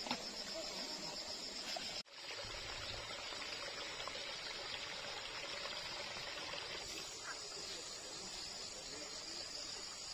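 Steady countryside ambience of insects chirring, with a sudden brief dropout about two seconds in where the sound changes at an edit.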